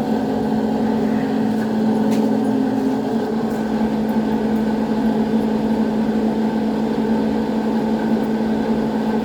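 A motor or engine running steadily, giving a constant, even hum.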